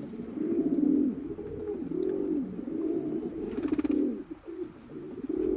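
Domestic homing pigeons cooing, a run of low, repeated, overlapping coos, with a brief rustle about three and a half seconds in.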